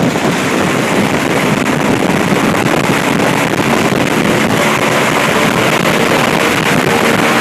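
Homemade airboat's 15 hp gas engine running steadily and loud, its 38-inch propeller blasting air, with heavy wind noise on the microphone from the prop wash.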